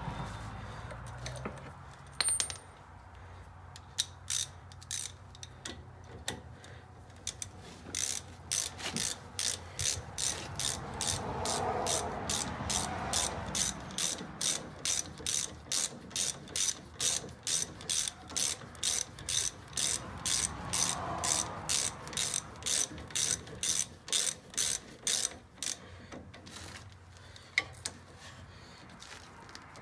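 Hand ratchet clicking in a long run of strokes, about two to three clicks a second, as it turns a brake caliper bolt in. The clicking starts about four seconds in and stops near the end.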